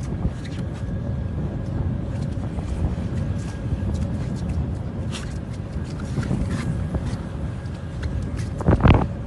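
Boat engine running steadily under wind on the microphone, with scattered light knocks and one loud thump near the end.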